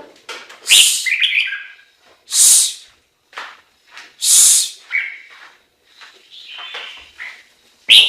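Chinese hwamei calling: three loud, harsh hissing notes about two seconds apart, with short whistled notes in between.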